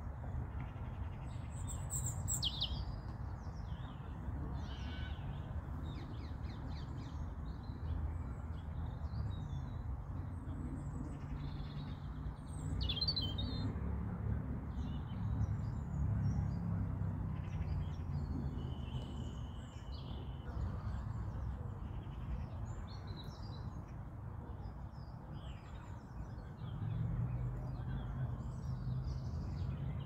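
European robin singing: scattered short, high warbling phrases, with a thin held whistle a little past halfway. Under the song runs a steady low rumble.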